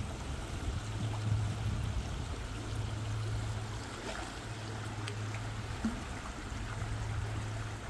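Stream water running steadily, with a steady low hum underneath.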